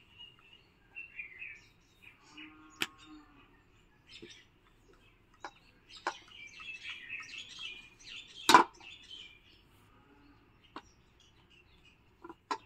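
Small birds chirping in the background over light clicks and taps of a wooden rolling pin working roti dough on a wooden rolling board. A single sharp knock about two-thirds of the way through is the loudest sound.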